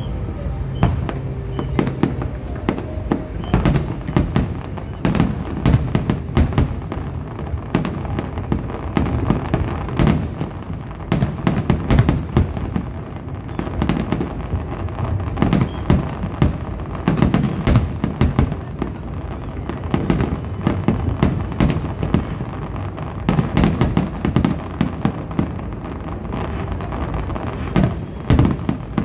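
Fireworks display: aerial shells bursting in quick succession, a near-continuous barrage of loud bangs with no pause.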